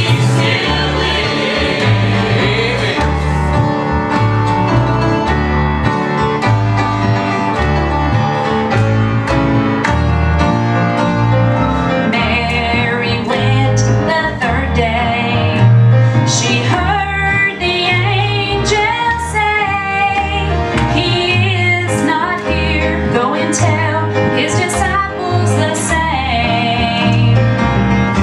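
Southern gospel song: a church choir singing over instrumental accompaniment with a steady, pulsing bass beat. A wavering melody line stands out from about twelve seconds in.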